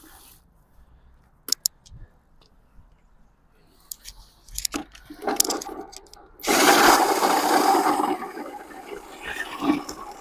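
A few sharp clicks and knocks, then about six and a half seconds in a loud rough churning starts: black walnuts tumbling and knocking against each other as a paddle stirs them, the nuts' own collisions scrubbing off the husk pulp.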